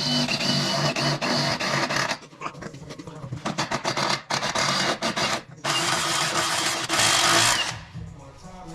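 Power drill drilling a mounting hole for a side skirt: it runs for about two seconds, then gives a stretch of stuttering short pulses and clicks, then runs again for about two seconds and stops near the end.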